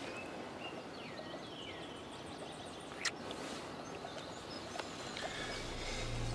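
Woodland ambience with birds chirping in short gliding calls, a sharp click about three seconds in, and soft background music coming in near the end.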